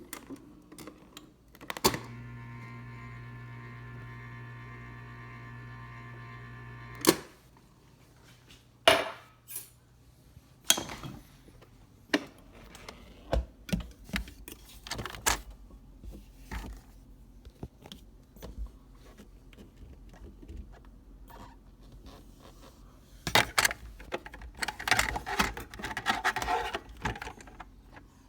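Clicks, then the Samsung refrigerator's door ice dispenser motor hums steadily for about five seconds with no ice falling, the sign of a clogged ice maker. Scattered knocks follow, and near the end a run of rattling and clinking as ice and plastic parts are handled.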